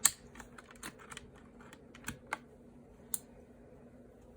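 Plastic clicks of keycaps being worked on a Ducky One 2 Mini mechanical keyboard while swapping keycaps with a keycap puller: one sharp click at the start, then scattered lighter clicks and taps.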